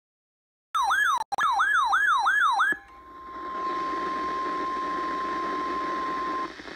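A weather radio alarm starts about a second in, an electronic warble sweeping up and down about three times a second. Then comes a steady single-pitch alert tone over radio hiss, which cuts off near the end: the NOAA Weather Radio 1050 Hz warning alarm tone that signals a new warning.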